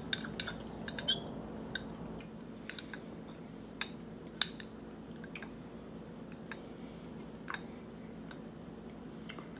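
A fork tapping and scraping in a bowl of soft glazed carrots: scattered light clinks, closer together in the first couple of seconds, then only now and then.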